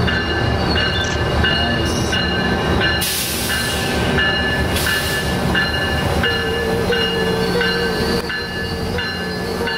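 Metrolink MP36PH3C diesel locomotive running slowly past as it pulls into the station, a steady low rumble with its bell ringing about twice a second. A hiss of air comes about three seconds in, and a steady whine in the last few seconds.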